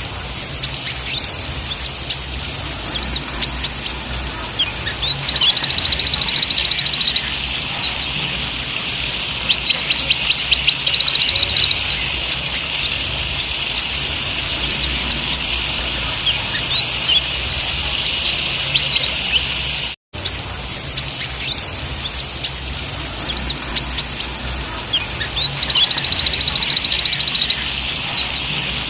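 Several kolibri ninja (brown-throated sunbirds) calling together: many short, high chirps, broken every few seconds by fast buzzing trills. The sound drops out for a moment about two-thirds of the way through.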